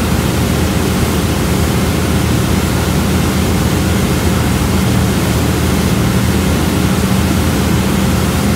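Motorboat running at speed: loud, steady rush of wind and water with a low engine hum underneath.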